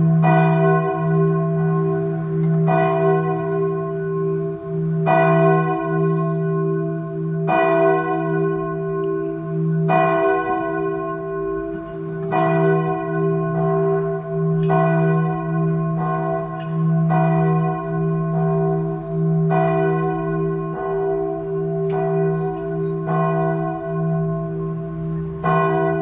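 Church bells ringing, struck again and again about once a second, often in close pairs. Their deep hum rings on without a break between strokes.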